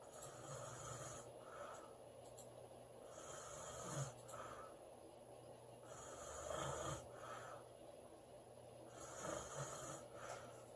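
A woman snoring in her sleep: a rough snore on each breath, coming about every three seconds, with a sharper peak at the end of some of them.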